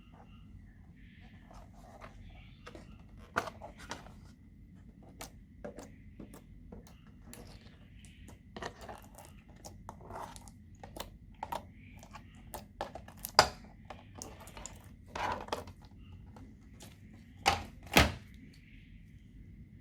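Slime being worked by hand, with irregular sticky clicks and pops, two of the loudest close together near the end.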